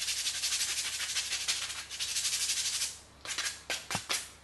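Sandpaper rubbing over a wooden spoon held in the hand, in fast back-and-forth strokes. Nearly three seconds in, the strokes slow to a few separate scrapes.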